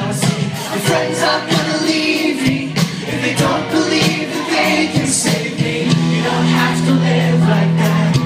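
Live rock band playing, with a male lead singer singing into a handheld microphone over the band, recorded from the audience.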